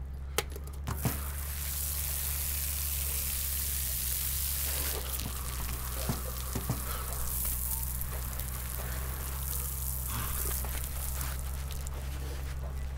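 Outdoor shower spraying water over a person's head and onto the concrete below, a steady hiss that grows louder about a second in, with a few short clicks along the way.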